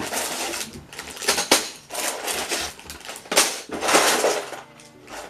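Rummaging through a cardboard box of Lego: plastic bags of bricks crinkling and the pieces clattering, in uneven bursts that ease off near the end.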